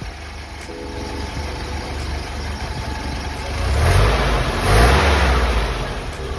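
Nissan Sunny Truck's A12 four-cylinder engine idling on newly fitted iridium spark plugs. It is revved twice in quick succession about four seconds in, then drops back to idle.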